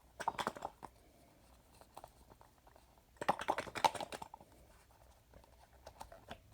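Quick clicks and rattles from a small box being handled and pried at by hand as it resists opening, in two short bursts about three seconds apart.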